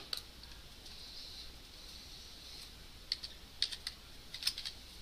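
Computer keyboard typing: a scatter of faint keystroke clicks from a little past halfway, over a faint steady hiss.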